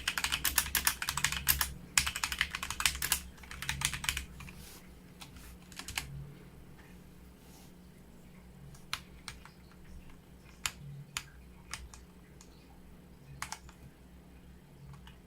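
HyperX Alloy Origins Core mechanical keyboard with linear red switches being typed on: a fast, dense run of keystrokes for about four seconds, then slower, scattered single key presses.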